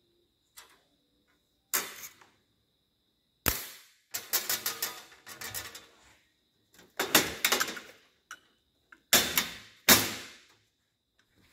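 Steel pliers knocking and rattling against a perforated steel pegboard panel: a series of sharp metal clanks with short ringing, a quick rattling run in the middle, and two loud clanks near the end.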